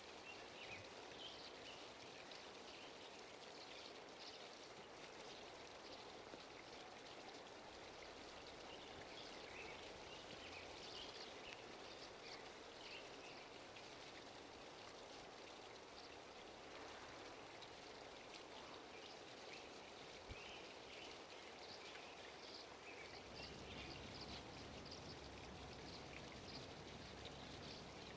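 Near silence: faint steady room noise, with scattered faint high chirps.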